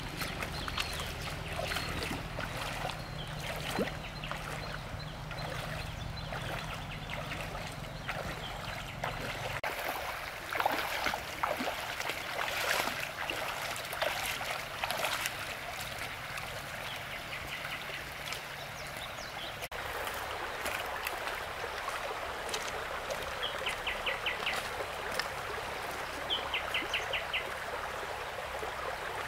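Water running and trickling, with scattered splashes in the middle. A low steady hum sits under the first third. Near the end a bird calls several times in short rapid trills.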